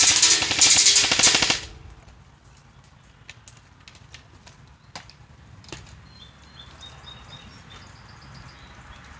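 Airsoft gun firing: a loud rapid automatic burst that cuts off about a second and a half in, then a few scattered single sharp shots or clicks.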